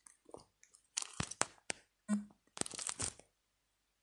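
Clicking at a computer keyboard and mouse while copying and pasting: two quick flurries of clicks, about a second in and again near three seconds.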